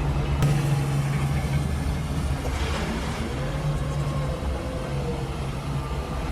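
Engine of heavy log-yard machinery running steadily at low revs, its pitch rising and falling slightly.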